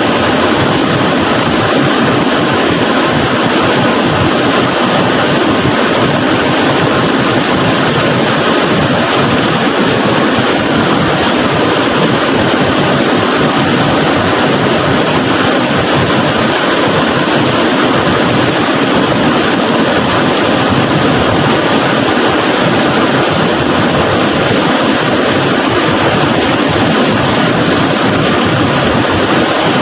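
Flood-swollen river rushing, a loud, steady roar of fast-flowing water with no let-up.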